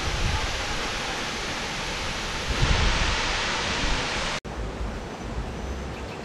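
Steady rushing outdoor noise with low rumbling swells. It cuts off abruptly about four and a half seconds in and resumes as a quieter, duller rush.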